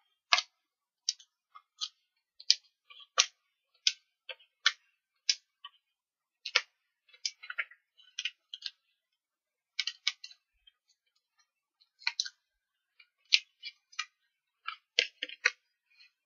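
Card stock being handled while adhesive foam pads (dimensionals) are peeled off and pressed onto a paper card. It is a run of short, sharp paper crackles and clicks at irregular intervals, with a pause of about two seconds near the middle.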